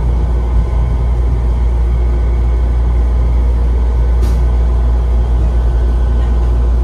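Airport Skytrain people-mover car running, heard from inside: a steady low rumble and hum as it rolls slowly into a terminal station, with one faint click about four seconds in.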